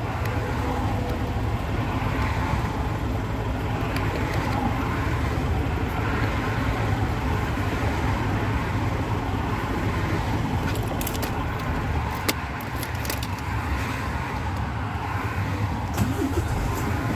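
Diesel truck engine running steadily, heard from inside the cab as a low rumble. A few light clicks come about two-thirds of the way through.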